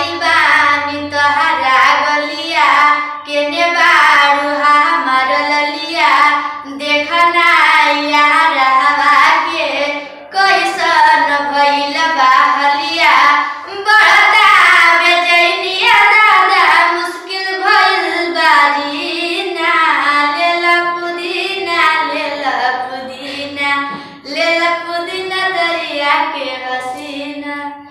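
A young female voice singing a song unaccompanied, in long held phrases with short pauses for breath.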